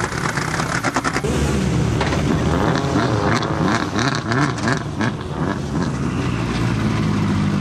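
Subaru Impreza rally car's turbocharged flat-four engine revving hard, its pitch rising and falling through gear changes as it passes at speed. In the first second there is a rapid crackle of clicks.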